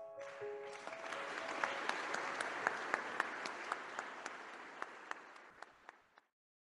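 Audience applauding, swelling and then thinning to a few scattered claps before cutting off to silence a little past six seconds in. The last notes of a soft mallet-percussion tune die away under the first second of clapping.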